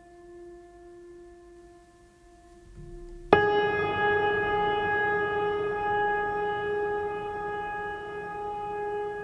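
A steady, unwavering droning tone, like a held horn or siren, that jumps abruptly louder and a little higher about three seconds in and then holds.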